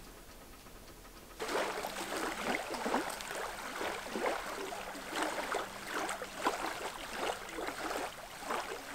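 Small waves lapping and splashing irregularly against a lakeshore, starting after a quiet first second and a half.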